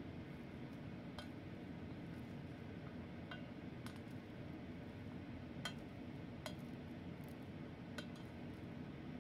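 A rice paddle scraping through cooked rice and tapping against the side of a metal pot while the rice is fluffed, giving about six sharp, scattered clinks.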